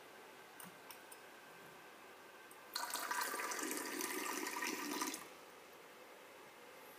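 Water running from a lab sink tap into a plastic container held under it, for about two and a half seconds. It starts and stops abruptly.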